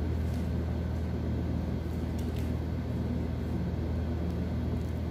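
Steady low hum in the room, with faint light scratches and rustles of pencil and tape measure on pattern paper about two seconds in.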